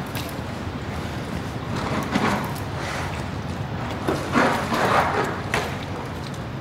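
Water splashing as a polar bear cub paddles in a pool and pushes a floating ball around, with louder splashes about two seconds in and again around four to five seconds in, over a steady low rumble.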